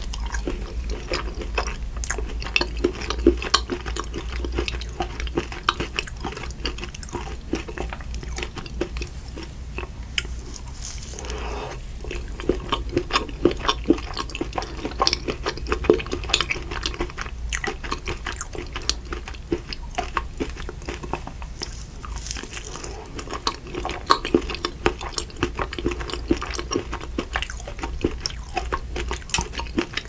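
Close-miked chewing of triple chocolate cheesecake: a steady stream of small mouth clicks over a low, constant hum.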